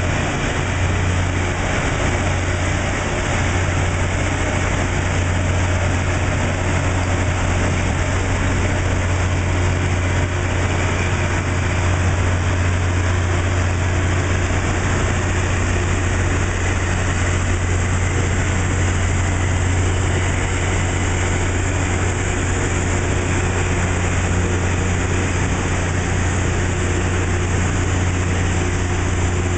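Loram rail grinder train running along the track while grinding the rail: a loud, steady low hum under an even rushing noise that does not let up.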